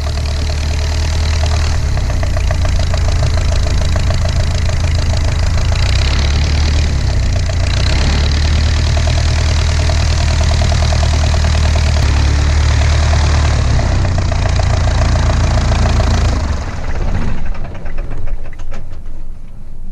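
De Havilland Chipmunk's Gipsy Major four-cylinder inverted engine running steadily at low power while taxiing. About sixteen seconds in it cuts off, followed by a few seconds of irregular clicks and knocks.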